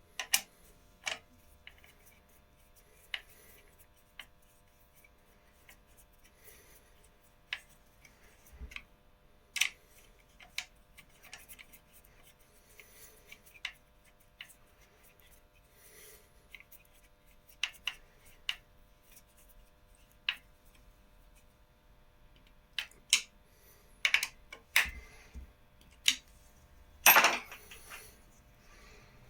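Scattered light clicks and taps of 3D-printed plastic connector parts and metal fittings being handled and pushed together, with a longer, louder clatter near the end, over a faint steady hum.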